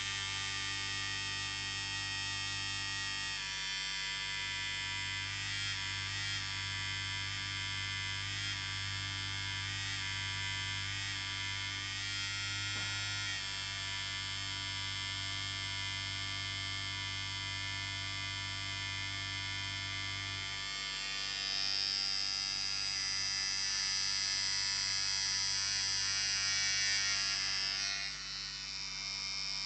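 Electric beard trimmer running with a steady buzzing hum. About 21 seconds in the tone changes, brighter and a little louder, then it eases off again shortly before the end.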